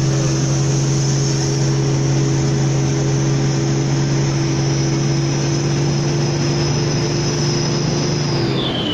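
Hino Ranger SG260Ti truck's turbodiesel engine running steadily under a heavy load, heard from inside the cab, with a high steady whine above the engine note. Near the end the engine note and whine drop away.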